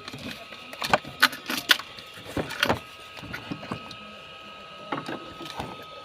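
Light clicks and knocks from a new timing belt tensioner and other small car parts being handled, over a faint steady high whine.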